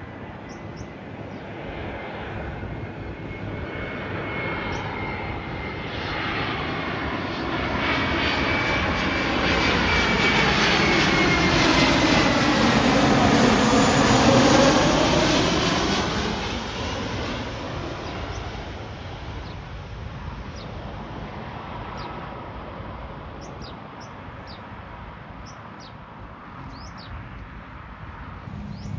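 An airliner's jet engines passing by: the noise builds gradually, peaks a little before halfway through, then fades, with a high whine that dips in pitch as the aircraft goes past.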